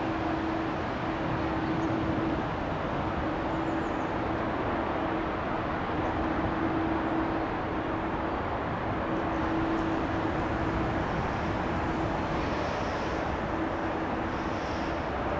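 Airbus A330-300 airliner rolling out on the runway just after landing: a steady rushing jet noise with a low hum that comes and goes.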